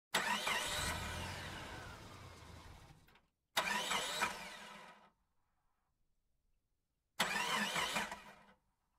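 A car engine starting and revving, heard three times as sudden bursts that each fade away within a second or two, with a wavering pitch.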